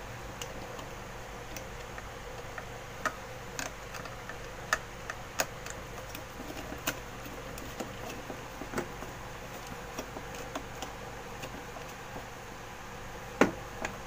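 Hands handling wires at the terminal block of a fire alarm manual call point: irregular small clicks and taps, with one louder click near the end.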